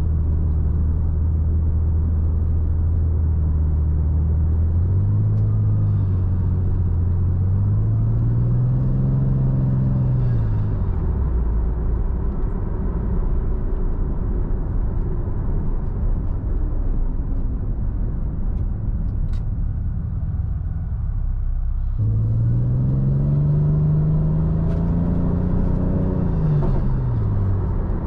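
Toyota Supra MK4's 2JZ straight-six engine on the move. It runs steadily at first, then the revs climb and drop back in two short pulls, and a low rumble with road noise follows. A longer climb in revs comes in the last third and falls away just before the end.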